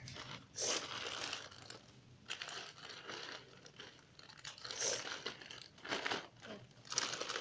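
Plastic packaging crinkling and rustling in irregular bursts as squishy toys are handled and bagged.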